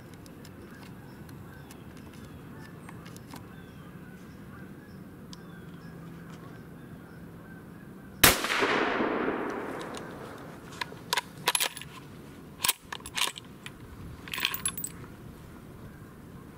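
A single .223 rifle shot about eight seconds in, its report echoing away over about two seconds. It is followed by several short metallic clicks and clacks as the rifle's action is handled.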